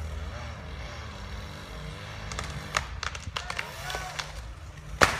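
Pine trunk cracking and popping as the cut-off top bends over on its hinge, ending in one loud, sharp snap about five seconds in as it breaks free. An engine runs low underneath, with faint voices.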